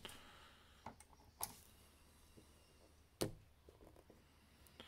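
Near silence broken by a few faint clicks, the sharpest about three seconds in: the metal track links and spring-loaded idler of a diecast scale-model excavator being pushed and released by hand.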